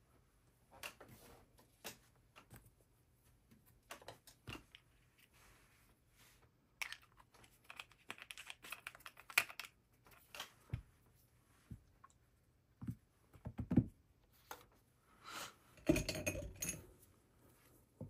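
Scattered light taps, clicks and short scrapes of a paintbrush being worked against a painting panel and palette, with a few louder knocks.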